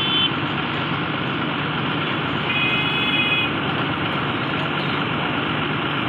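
Heavy vehicle's diesel engine running steadily, with a short high-pitched beep about two and a half seconds in.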